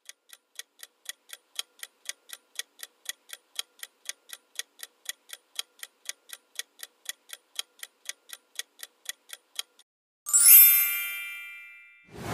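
Countdown-timer sound effect: a clock-like tick about four times a second for nearly ten seconds. About ten seconds in a bright chime rings out and fades as the answer is revealed, and a loud swoosh begins just at the end.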